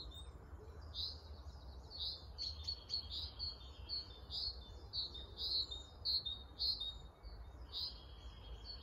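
Birdsong: a string of short high notes repeated about twice a second, over a low rumble.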